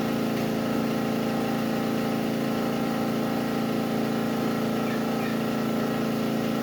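Portable gasoline generator engine running steadily at constant speed, a continuous even hum.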